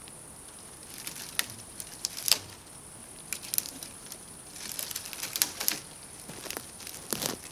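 Dry twig kindling crackling as it catches fire in a small folding metal wood stove: irregular sharp pops and snaps, busiest about a second in and again in the second half.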